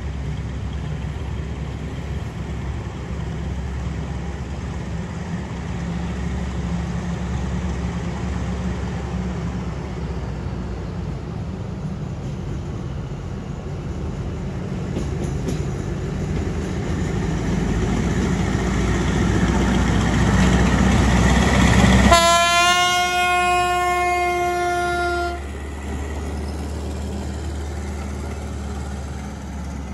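Diesel-hauled passenger train approaching and passing, its engine and wheels rumbling louder as it nears. About two-thirds of the way through, the locomotive sounds its horn once for about three seconds, and the horn cuts off sharply. The coaches keep rumbling past after it.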